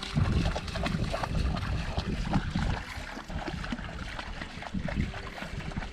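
Water sloshing and lapping around a kayak on a river, with an uneven low rumble of wind on the microphone.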